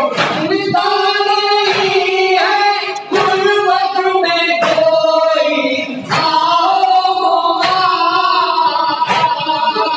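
Male voices chanting a noha, an Urdu lament, close on a microphone, with a sharp slap about every second and a half that keeps the beat of the chest-beating (matam).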